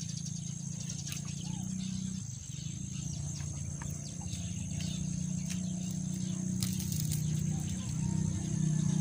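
Insects chirping steadily in a high, thin, unbroken tone, over a low steady hum that grows louder near the end, with scattered light clicks.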